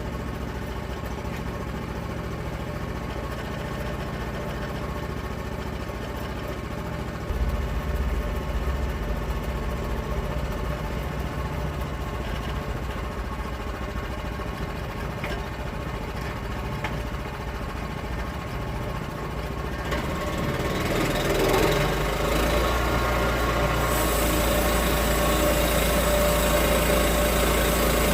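Sawmill's engine running steadily, growing louder and fuller about two-thirds of the way through.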